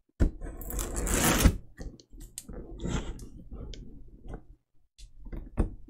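Thick packing tape being peeled off a cardboard shipping box: a long ripping tear in the first second or so, then scattered crackles and handling clicks of tape and cardboard.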